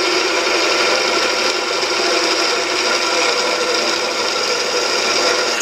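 An electric drill running an 8 mm bit through a metal plate lubricated with cutting oil, a steady grinding whir with a chattering edge. It cuts off suddenly at the end.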